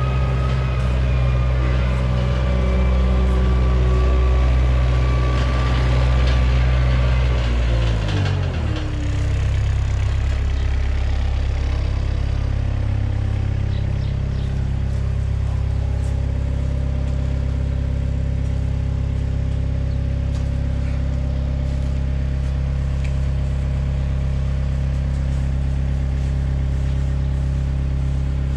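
Gehl AL440 compact wheel loader's diesel engine running at working revs with a whine from its drive, then dropping to a steady idle about eight seconds in.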